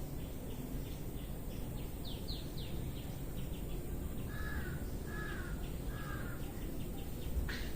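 Birds calling: three short calls in quick succession in the middle, fainter chirps throughout and a louder call near the end, over a steady low background noise.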